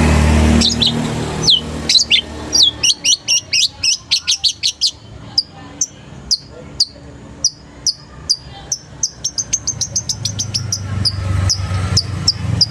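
Young long-tailed shrike (cendet) singing: a rapid run of sharp, downward-slurred chirps, then a string of short high ticks that quickens into a fast chatter near the end.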